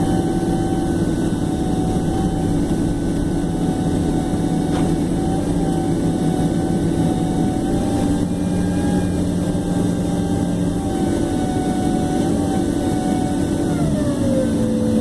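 Jet airliner cabin noise while taxiing: a steady engine rumble with a high whine, the whine falling in pitch near the end.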